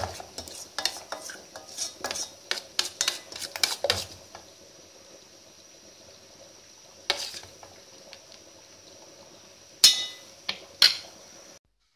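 A spoon stirring and scraping thick cooked-down sugar syrup in a pot just off the heat, with rapid clinks for the first four seconds. Then it goes quieter, with one knock about seven seconds in and two sharp ringing clinks of spoon on pot near the end.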